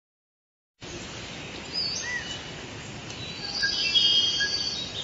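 Forest ambience: a steady hiss of background noise with birds chirping and trilling over it, starting about a second in. The bird calls grow busier and louder a little past the middle.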